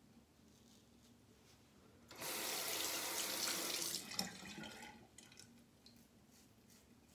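Bathroom sink tap running for about two seconds, then shut off, with a sharp knock just after it stops.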